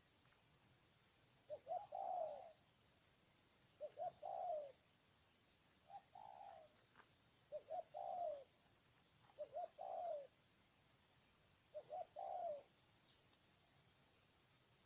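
Spotted dove cooing: six low phrases about two seconds apart, each two or three quick coos running into a longer falling note. A faint steady high hiss lies underneath.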